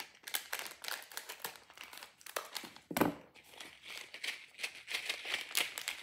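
Plastic packaging of googly eyes crinkling and crackling as it is cut and torn open with scissors and handled.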